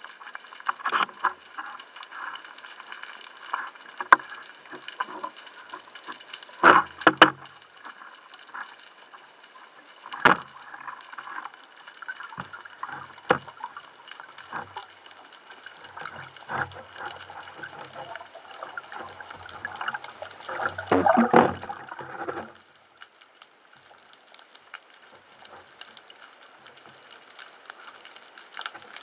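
Underwater sound on a speargun-mounted camera: diver's bubbles gurgling, with scattered sharp knocks and clicks of gear, the loudest a close pair about a third of the way in. A dense burst of bubbling about three-quarters of the way in cuts off suddenly.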